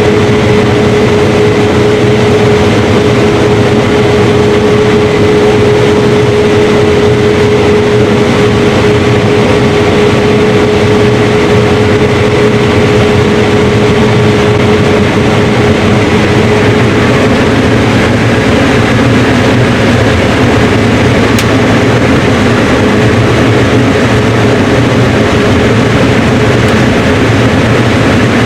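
Combine harvester running steadily while harvesting, a constant engine drone with a steady whining tone over it that fades about halfway through.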